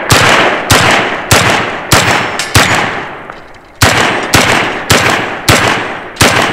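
SDS Imports LYNX 12, an AK-pattern semi-automatic 12-gauge shotgun, firing birdshot in rapid succession from a 12-round SGM Tactical magazine. There are ten shots, about one every 0.6 s, with a gap of a little over a second after the fifth, and each shot trails off in a short echo. The gun cycles every round without a stoppage.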